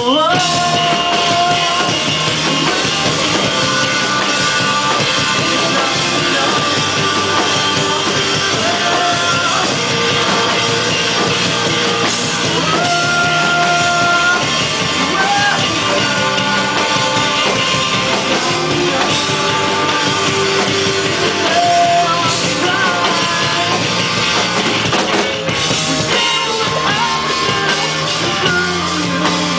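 Live rock band playing loud: electric guitars over a drum kit, with held guitar notes that slide up in pitch at the start and again now and then.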